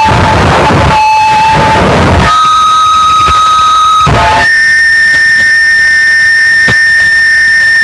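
Harsh noise music: a loud, steady, piercing whine that steps up in pitch twice, each step broken by a short blast of distorted noise.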